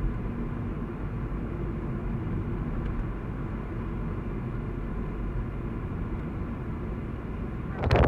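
Steady low rumble of a car's engine and tyres at about 45 km/h, heard from inside the car. Just before the end it gives way abruptly to loud wind buffeting on the microphone in an open-top convertible.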